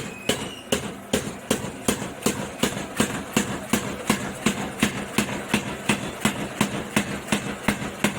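Home-made mechanical power hammer running, its ram striking in an even rhythm of about two and a half blows a second over the steady hum of its small electric drive motor.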